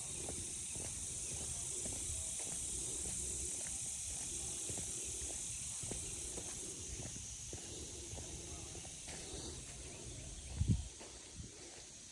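Steady high-pitched drone of insects outdoors, with a low rumble underneath and one short low thump about ten and a half seconds in.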